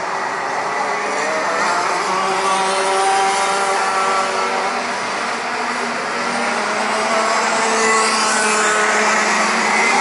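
A pack of Rotax Max 125 cc two-stroke racing karts running together, several high-revving engines overlapping, their pitches rising and falling as the karts accelerate and lift through the corners.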